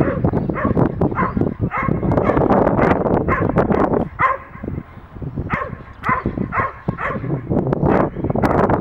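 Dog barking at the helper during protection bite-work training, lunging on a line: rapid repeated barks, about two a second, with a short lull near the middle. Wind rumbles on the microphone underneath.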